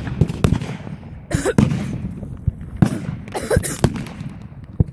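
Consumer fireworks going off in a rapid, irregular string of bangs and crackles, with louder bursts about a second in and again around three seconds in.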